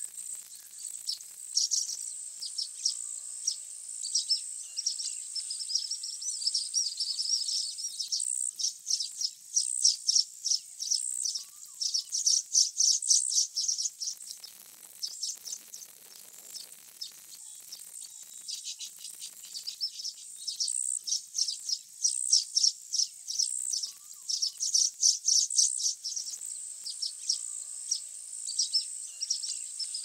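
Baya weavers chattering in fast runs of high-pitched chirps, over a steady high-pitched insect buzz. The chatter eases off for a few seconds about halfway through.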